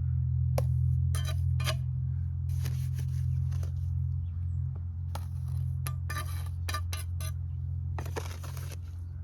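Steel trowel scraping and clinking against mortar and cinder block in a string of short, irregular strokes, over a steady low hum.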